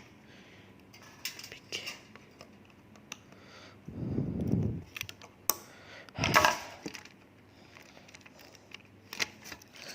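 Scattered clicks and knocks of small plastic toy-train parts being handled and fitted together, with a louder burst of handling noise about six seconds in.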